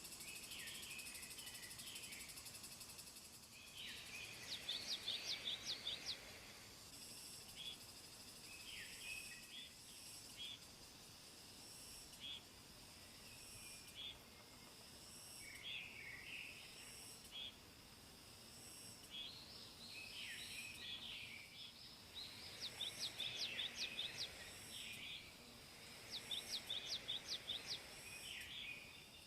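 Bird calls: three runs of rapid, high-pitched chirps repeated evenly, with scattered shorter chirps between them, over a steady high drone of insects.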